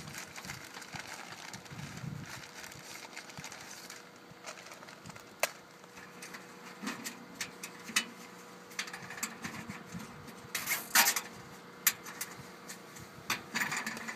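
Cable ties being pulled tight around solar panel wiring on an aluminium roof rail: a few short zipping rasps, the loudest about eleven seconds in, among scattered clicks and taps of handling.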